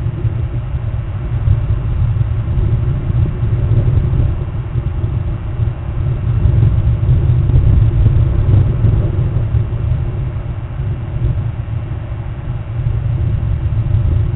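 Strong wind buffeting the microphone: a loud, deep rumble that swells and eases in gusts.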